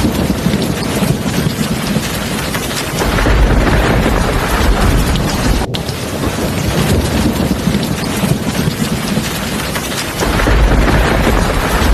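Heavy rain pouring steadily, with low rumbles of thunder swelling up about three seconds in and again near the end.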